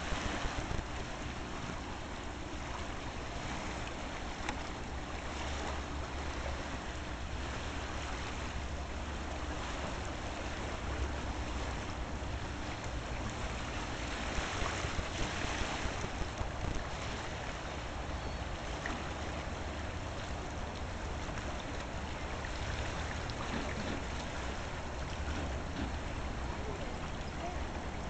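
Water pouring over a small river weir, rushing and churning steadily into the river below, with a low rumble underneath.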